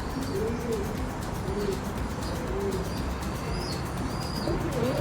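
Pigeons cooing: a run of soft, low coos that rise and fall, over a steady background hiss, with a few faint high chirps from small birds in the second half.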